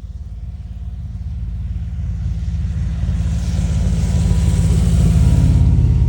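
Low, pulsing engine rumble that grows steadily louder, with a hiss joining in over the middle seconds.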